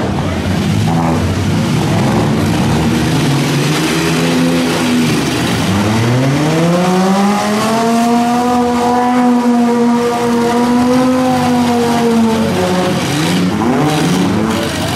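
Several demolition derby cars' six-cylinder engines running hard together, with one engine revving up about five seconds in, holding high revs for several seconds as it pushes in the mud, then dropping back near the end.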